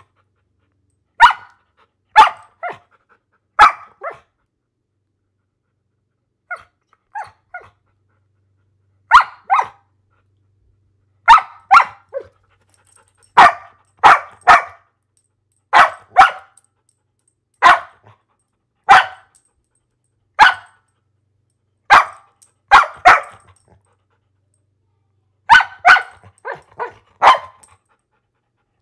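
A dog barking in short, sharp barks, some single and some in quick pairs and runs of three, with brief pauses between them and a few fainter barks about seven seconds in.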